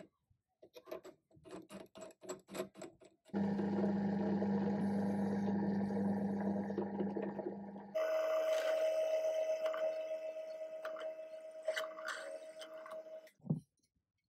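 Benchtop drill press: a run of clicks as a bit is fitted into the chuck, then the motor running with a steady low hum. After a cut it runs with a higher steady tone and a hiss as a countersink bit works a hole in the pencil sharpener's sheet-steel frame, and it ends with a single knock.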